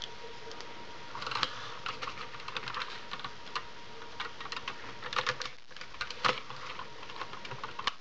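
Hard plastic parts of an Astro Megazord robot toy clicking, scraping and snapping together as they are handled and fitted. The clicks come in irregular clusters from about a second in, the loudest a sharp snap just past six seconds.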